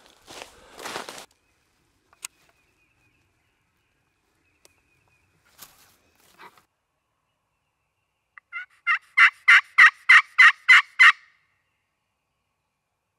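A series of about nine evenly spaced turkey yelps, loud and close, over roughly two and a half seconds. Before them, a brief shuffle in dry leaves.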